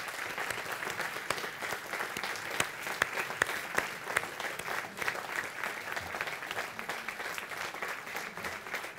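A large crowd applauding: many hands clapping in a steady, dense patter.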